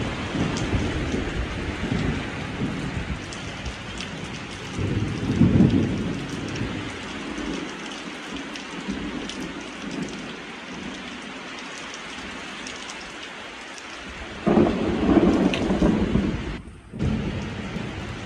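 Thunderstorm: steady heavy rain hissing down, with rolling thunder rumbling underneath. The thunder swells about five seconds in, eases for several seconds, then comes back in a long, loud rumble near the end.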